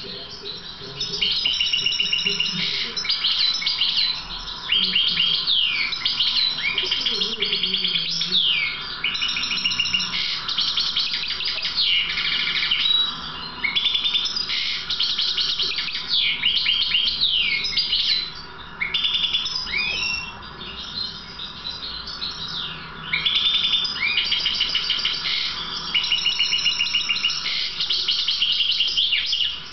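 European goldfinch of the Balkan subspecies (Carduelis carduelis balcanica), a tutor-trained bird, singing its twittering song of fast trills and short rising and falling notes. The song comes in long phrases broken by a few brief pauses.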